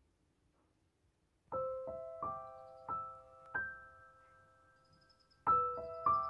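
Background music: a slow, gentle piano melody of single struck notes that ring on. It starts about a second and a half in, with a new note about every 0.7 s, and a fresh phrase begins near the end.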